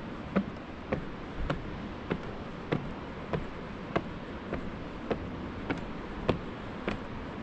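Footsteps climbing wooden steps, a sharp knock about every 0.6 s in a steady walking rhythm, over a steady background hiss.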